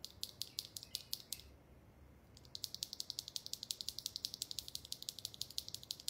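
A single mechanical keyboard switch worked by hand, its stem pressed and released. First come a few separate light clicks, then a fast even run of clacks at about ten a second.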